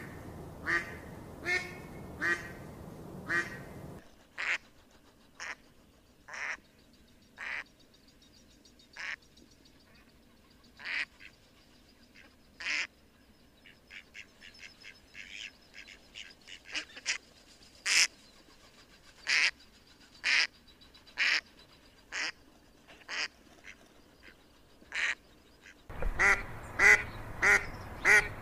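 Ducks quacking in a string of separate calls. Regular quacks over a steady hiss at first, then sparser calls that bunch into quick runs in the middle, then louder, faster quacking again near the end.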